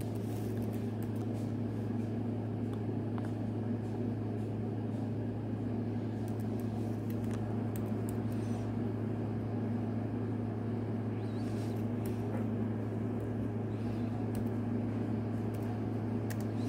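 A steady low hum, with faint scattered clicks of a laptop keyboard being typed on.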